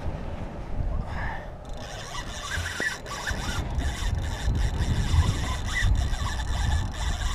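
Spinning reel working under load against a hooked paddlefish, a dense run of small mechanical clicks and scrapes.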